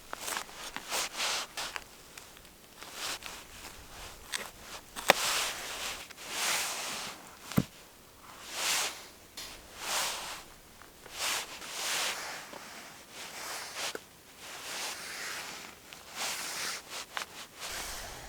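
Footsteps crunching through snow at a steady walking pace, about one step a second, with a couple of sharp clicks in between.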